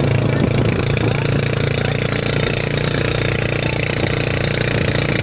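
Small motorcycle engine of a passenger tricycle running steadily under load, a low hum with a fast pulsing beat, heard from among the riders in the sidecar.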